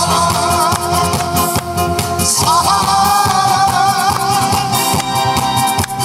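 A man singing into a microphone over amplified backing music with a steady beat, his voice wavering with vibrato, in two phrases, the second starting a little over two seconds in.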